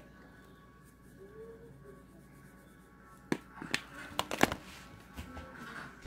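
A few sharp clicks and knocks, starting about three seconds in, from a plastic spice bottle being handled and set down on the countertop, over quiet background music.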